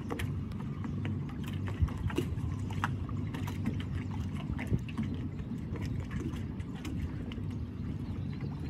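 Twin 115 hp Evinrude E-Tec outboards idling with a low, steady hum, under irregular light clicks and knocks.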